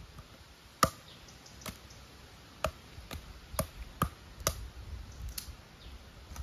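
Machete blows chopping and splitting wood into small pieces for kindling: about eight sharp chops at an uneven pace, the first the loudest.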